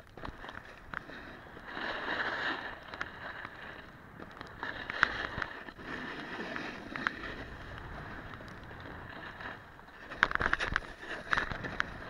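Snowboard sliding and carving on packed snow: a continuous hiss of the base and edges on the snow, with louder scraping swells and crackly chatter as the edge bites in the turns, about two seconds in, around five seconds, and again near the end.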